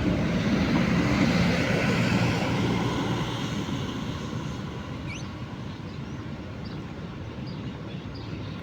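Engine noise of a passing vehicle, loud at first and fading away over about four seconds. After that, a few faint bird chirps, one a quick rising note about five seconds in.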